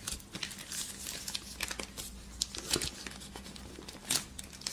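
Plastic shrink wrap crinkling and crackling in irregular bursts as fingers pick at it and peel it back by hand.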